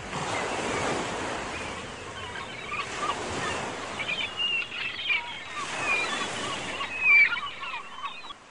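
Ocean surf washing in and out, with birds calling over it from about three seconds in.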